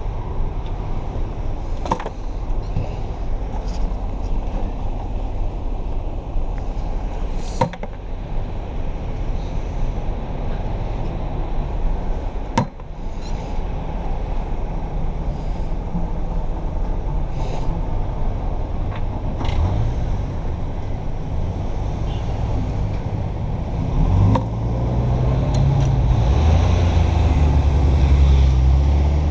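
Street traffic on wet pavement: a steady rumble and tyre noise from passing cars and a mail truck, with a few sharp knocks. About 24 seconds in, the engine of a car close by grows louder.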